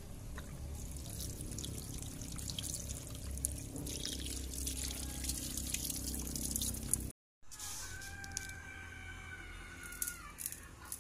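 Tap water running and splashing over sliced raw sardine fillets on a plate as they are rinsed in a sink, with small clicks and splashes of hands handling the fish. The sound breaks off about seven seconds in, after which a few faint steady tones are heard.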